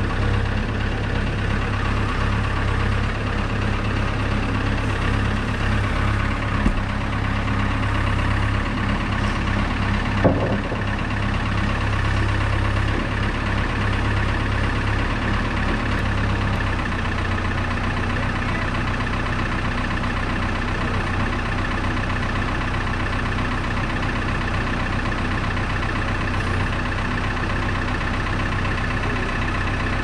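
Diesel engine of a telehandler running steadily at idle, with two short knocks, about 7 and 10 seconds in, and a slight drop in its low hum a little past halfway.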